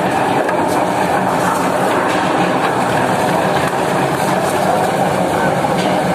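Tractor-drawn eucalyptus debarking machine running, its ridged rollers tumbling and knocking a load of poles against each other to strip the bark: a loud, steady clatter with scattered knocks.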